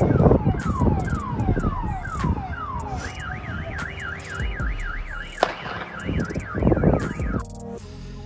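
A car alarm going off, first a run of quick falling whoops, then switching about three seconds in to a fast up-and-down warble. Loud bursts of noise cover it at the start and again near the end, with a sharp bang about halfway through; background music takes over in the last second.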